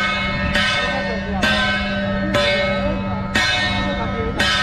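Hand-held brass gong struck steadily about once a second, five strokes, each left ringing into the next.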